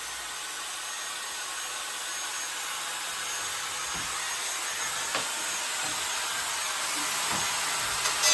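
Small grinder cutting nails off wooden joists: a steady grinding hiss that slowly grows louder, with a few faint clicks.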